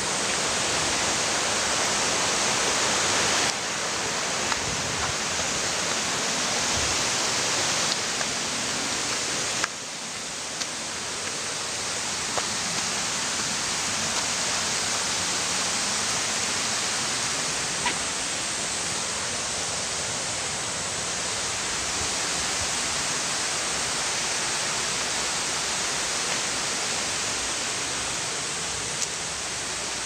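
Waterfall's falling water rushing steadily as a dense hiss, with sudden shifts in level about 3.5 and 10 seconds in and a few faint clicks.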